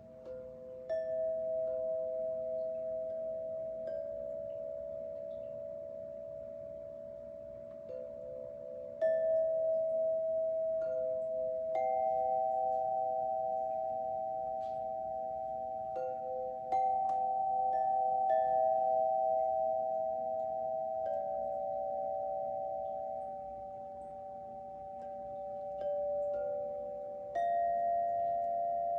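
A bell-like sound-healing instrument is struck about a dozen times. Each strike gives a clear mid-pitched ringing tone that sustains for several seconds, so the tones overlap as the pitch steps between a few notes. A faint steady hum lies underneath.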